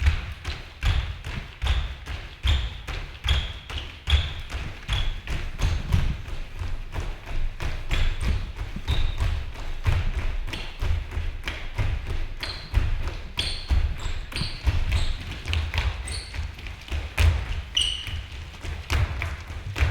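Dancers' feet landing on a stage floor over and over as they jump continuously, a steady rhythm of thuds about two to three a second, with short high squeaks among them.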